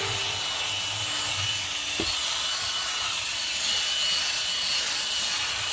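Cordless drill spinning a scrub brush against a car's floor carpet and sill trim: a steady whirring scrub, with a single knock about two seconds in.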